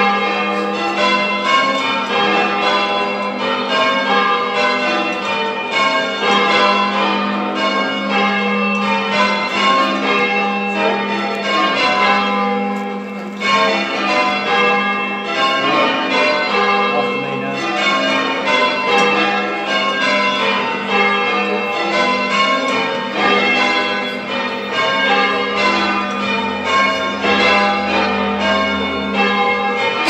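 Change ringing on a ring of eight church bells, tenor 10 cwt in G, cast by John Taylor & Co in 1902. The bells strike in a steady, unbroken stream of rounds or changes.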